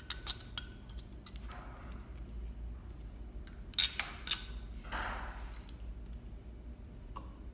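Light clicks and taps of hand-threading a Juki MO-6700DA serger, with a soft rustle of thread being drawn through the guides about five seconds in. A low steady hum sits underneath.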